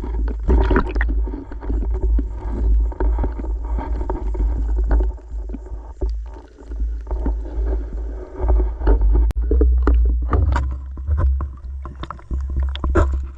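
Muffled water noise heard through a GoPro in its waterproof housing: a deep steady rumble with frequent knocks and clicks.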